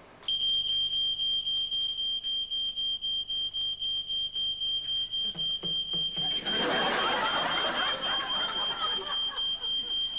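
Electronic alarm sounding a high, shrill tone that pulses several times a second. It starts just after the opening and cuts off at the end. In the second half, a loud rush of noise plays over it for a few seconds.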